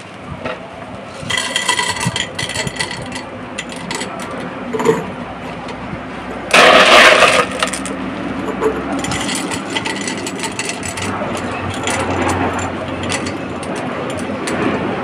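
Light expanded clay (LECA) pebbles scooped by hand and dropped into a glass jar around a plant's roots: a run of small clicks and rattles against the glass and each other, with a louder burst about seven seconds in.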